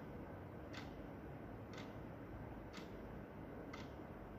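Quartz wall clock's second hand ticking once a second, four ticks in a row, over low steady background noise.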